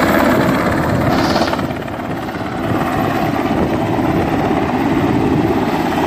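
A helicopter flying low overhead, its rotor beating loudly and steadily with a fast, even blade chop.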